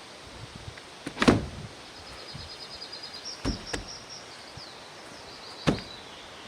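A heavy wooden door on a newly hung set of hinges knocking against its frame: one loud bang about a second in, then softer knocks twice near the middle and once near the end. A faint high chirping trill sounds through the middle.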